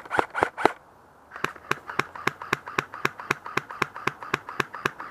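Airsoft gun firing in rapid, even shots: a short string, a pause of about half a second, then a long run at about four shots a second.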